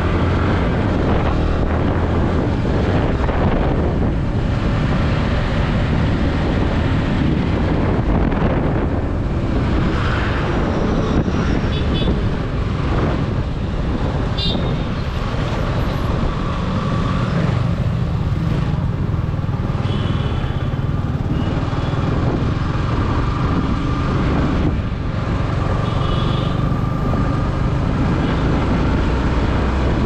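Yamaha R15's single-cylinder engine running at low city speed, heard from the bike itself, with road and wind noise and the traffic around it. A few short high tones come through in the second half.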